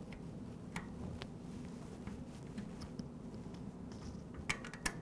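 Small metal clicks and scrapes of the Phillips bit of a bike Allen-wrench tool turning the screws of a bicycle rear derailleur guard, with two sharper clicks near the end.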